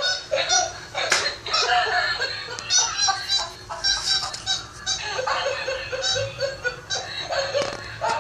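Laughter in long runs of quick, even pulses, repeating through the whole stretch.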